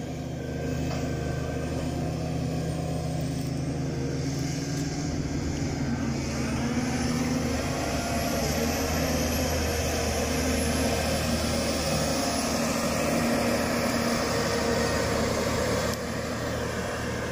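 Forestry harvester's 200-horsepower diesel engine running under load as the machine drives off through deep snow on its tracked bogie wheels. It gets louder about six seconds in, with a high whine rising there.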